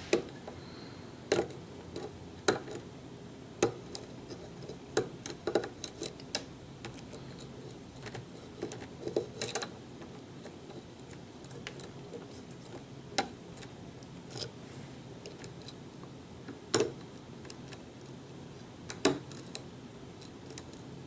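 Lock pick and tension wrench working the pins of a Kwikset-keyway pin tumbler challenge lock: sharp metallic clicks and small taps at irregular intervals, some in quick clusters.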